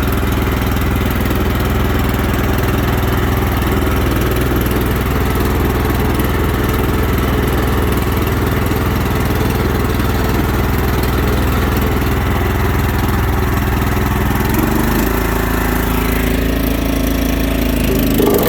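2013 Huskee LT4200 riding mower's 420cc single-cylinder engine running steadily, just started and still a little cold. About fifteen seconds in its speed changes, picking up for a couple of seconds before dropping back near the end.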